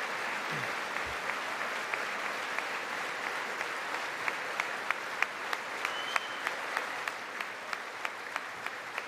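Sustained applause from a large crowd in a big hall. From about halfway through it thins, and single sharp claps stand out at about three a second.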